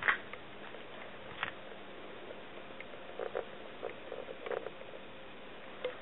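Scattered short rustles and crackles of dry grass and leaves as a tortoiseshell cat paws and noses at a dead small bird, bunched together in the middle. A sharp click at the very start is the loudest sound.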